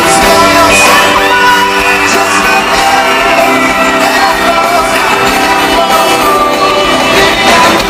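Rock band playing live in a large hall: a male lead vocal sung over electric guitar and the band, with shouted voices in the mix.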